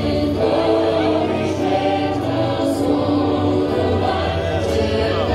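A choir singing with musical accompaniment in long held notes.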